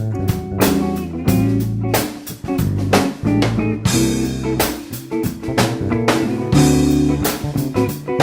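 Background music: a rock/blues track with electric guitar, bass and a steady drum-kit beat.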